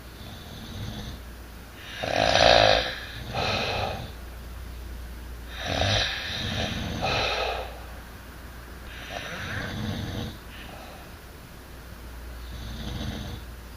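Snoring: four slow breaths about three and a half seconds apart, the loudest about two seconds in.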